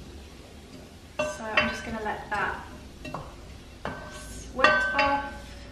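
Onions and garlic being stirred in a large pot, the utensil scraping and clinking against the pot's sides and ringing briefly. The clinks come in two spells, one starting about a second in and a shorter one near the end.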